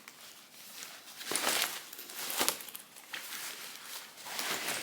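Rustling and crinkling of a fabric vest purse being handled, in irregular short scrapes and rustles.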